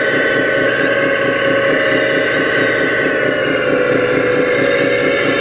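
Hydraulic pump and motor of a scale RC hydraulic excavator running steadily with a high whine while the boom raises a full bucket of dirt. The pitch shifts slightly about three and a half seconds in.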